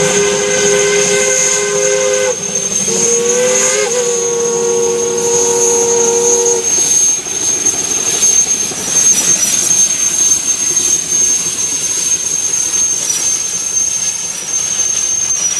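Steam locomotive's chime whistle sounding a chord of several notes in two long blasts. The first ends about two seconds in; the second opens with a slight upward bend and cuts off about seven seconds in. After it comes a loud, steady rushing hiss of steam.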